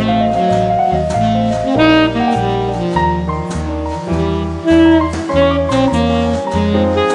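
Background jazz music: a saxophone-like lead melody over a stepping bass line and drums, at a steady tempo.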